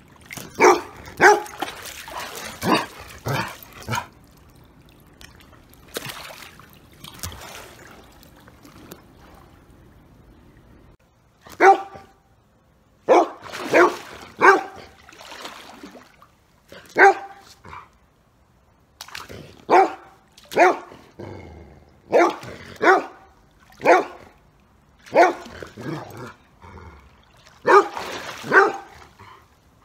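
A large dog barking repeatedly: a quick run of barks at first, a lull of several seconds, then single barks about once a second.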